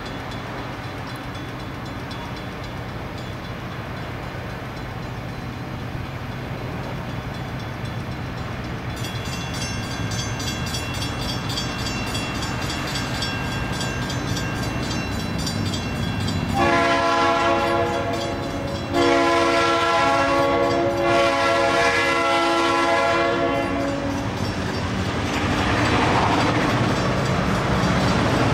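Approaching freight train led by EMD SD38-2 diesel locomotives, their non-turbocharged 16-cylinder engines humming and growing louder. About two-thirds of the way in the lead unit sounds its horn in two long blasts, the second longer. Engine and wheel noise then swell as the train draws near.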